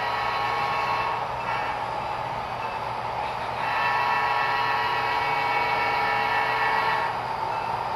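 Sound-decoder diesel engine sound from HO-scale EMD tunnel-motor model locomotives: a steady engine drone with a ringing high whine. The sound eases off about a second in and swells again about halfway through.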